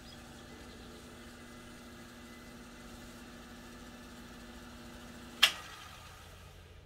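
Revox B77 MkI reel-to-reel tape transport running with a steady hum. About five and a half seconds in, a transport button is pressed with a single sharp click and the running sound stops.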